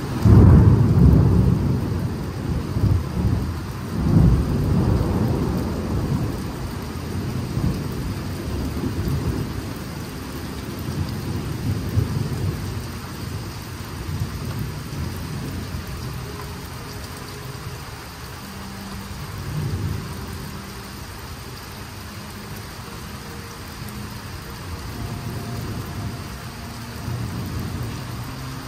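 A close thunderclap breaks a fraction of a second in and rolls on as deep rumbling thunder, swelling again about four seconds in and dying away over the following several seconds. Steady rain falls throughout.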